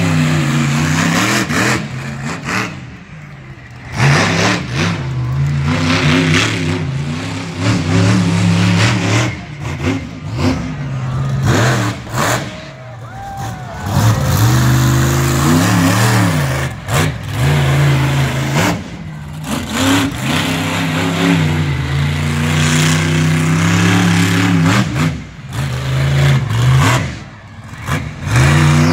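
Monster truck engine revving hard over and over, its pitch climbing and falling, with short drops between the bursts of throttle.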